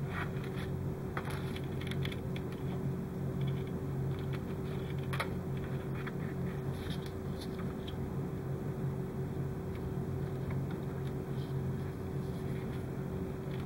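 Thin insulated hookup wires being handled and bent by hand, giving faint rustles and a few light clicks, the clearest about five seconds in, over a steady low background hum.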